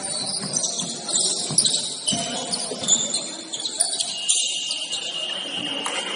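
Basketball shoes squeaking repeatedly on a hardwood gym floor during play, with voices in the gym.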